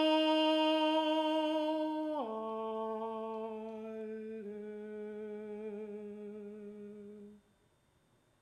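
Countertenor singing a long held note that slides down about two seconds in, then the word "alle" on two lower held notes with vibrato. The voice stops abruptly about seven seconds in.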